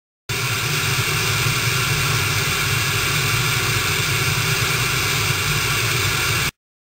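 Analogue TV static: a steady hiss with a low hum under it, switching on abruptly just after the start and cutting off suddenly near the end.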